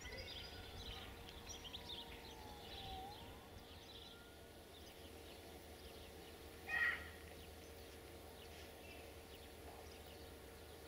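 Quiet outdoor ambience beside the railway: birds chirping, a steady faint hum, and one short, louder call about seven seconds in.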